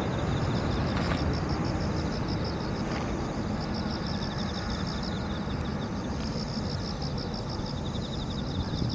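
Boeing 787-9 airliner's jet engine rumble slowly fading as it rolls away after landing. Insects chirp over it in rapid, even pulses.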